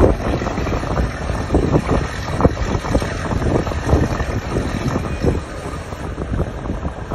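Wind buffeting the microphone in irregular gusts over a steady low rumble.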